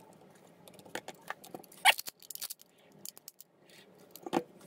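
Sharp metallic clicks and clacks from the freshly reassembled Winchester Miroku 1886 lever-action rifle being handled and its lever action worked as a function check, the loudest a little before two seconds in and another near the end.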